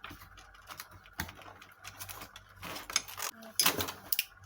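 Parts and packaging of a live-streaming kit being handled during unboxing: a string of small plastic clicks and knocks, with louder rustling about three seconds in and again near the end.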